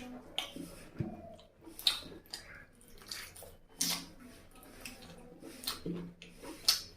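Close-miked eating sounds: wet, sticky smacks and clicks of a mouth chewing curry-soaked chicken and rice, coming irregularly about once a second.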